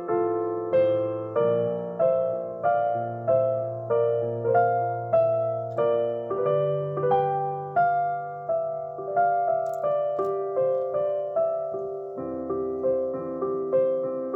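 Solo piano playing a slow, gentle piece: a steady pulse of struck notes, about one and a half a second, each fading away over lower held chords.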